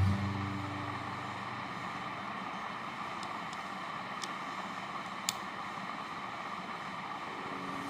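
Steady background hiss with a few faint, sharp clicks of plastic Rubik's cube pieces being handled and fitted together, the clearest click about five seconds in.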